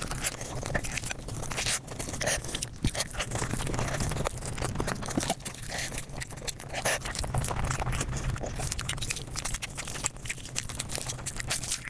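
Mukbang eating sounds played at five times normal speed: a dense, rapid run of chewing, crunching and mouth clicks.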